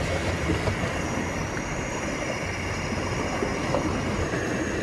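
Pot of sinigang soup boiling on a stove: a steady rushing, bubbling noise with a low rumble underneath.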